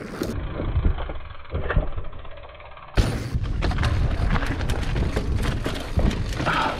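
Mountain bike riding over a rocky trail: tyres crunching over stones, the bike rattling and knocking on each bump, over a low rumble of wind on the microphone. About three seconds in the sound turns fuller and closer, with a denser run of knocks.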